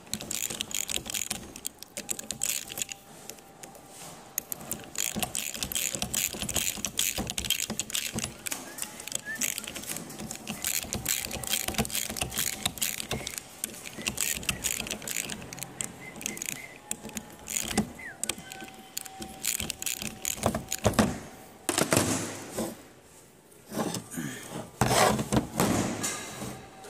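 Hand ratchet wrench clicking in quick runs as it turns a bolt on a power steering box. Near the end come a few louder metallic knocks and clatter as the parts are handled.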